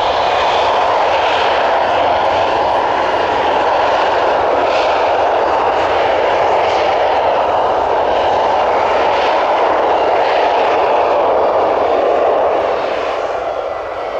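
Twin-engined MiG-35 fighter taxiing, its jet engines running at low taxi power with a steady, loud noise. The sound eases slightly near the end as the jet moves along.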